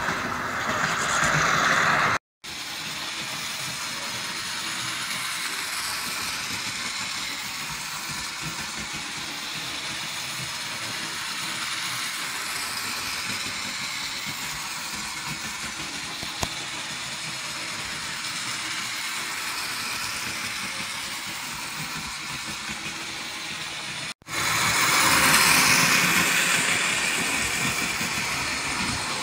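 HO-scale electric model trains running on sectional track: a steady whir of the small motors with the wheels running over the rails. It cuts out briefly twice, about two seconds in and again near the end. It is fainter in between and louder in the last few seconds as a locomotive runs close by.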